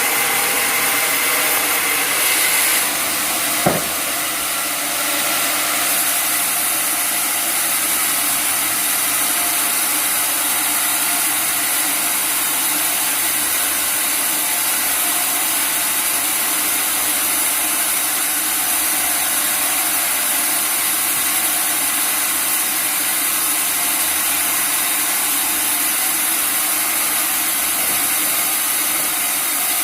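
Sawmill running steadily, its saw blade cutting through an acacia log with a continuous high hiss over the motor. A single sharp knock sounds a little under four seconds in.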